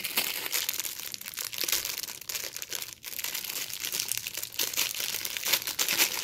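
Thin clear plastic bag crinkling and crackling as fingers work at it and pull it open, with a brief pause about halfway.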